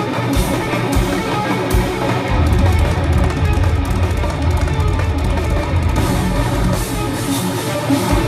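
Live instrumental progressive metal: a band playing electric guitars over drums, with a heavy low end from about two seconds in to about six seconds in.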